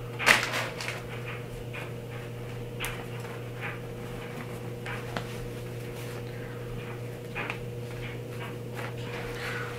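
Soft, scattered rustling of a thin fabric beanie being handled and pulled onto the head, over a steady low electrical hum.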